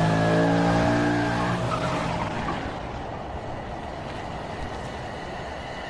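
Car burnout: the engine running at high revs, its note falling slightly and dropping away about two seconds in, leaving a hiss of spinning, skidding tyres that fades and holds at a lower level.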